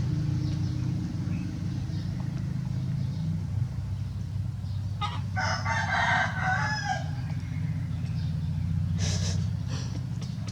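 A rooster crowing once, a call of about two seconds starting about five seconds in, over a steady low hum.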